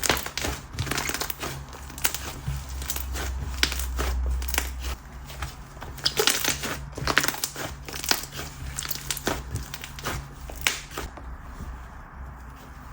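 Whipped, wood-glue-based chew slime being stretched, folded and squished by hand, giving many small sharp pops and crackles. The pops come thick and fast, then thin out near the end.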